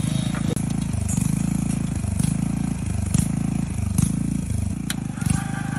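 Electric motor of a homemade water well drilling rig running: a low mechanical hum that swells and dips, with a few sharp clicks. A higher whine joins near the end.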